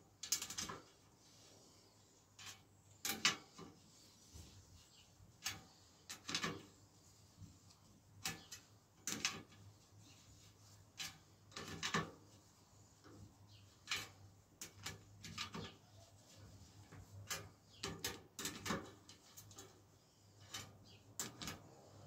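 Spoke key turning the spoke nipples of a rear bicycle wheel, a full turn each on the non-drive side to build up spoke tension: faint, irregular clicks and ticks, roughly one a second.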